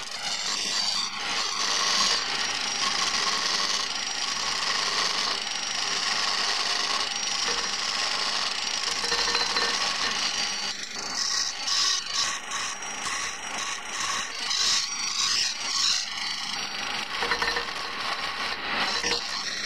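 Wood lathe spinning a long wooden ice-chisel handle blank while a skew chisel shaves it: a steady hiss of cutting wood over the machine's run. From about halfway the cutting sound comes and goes in short swells as the chisel is worked along the blank.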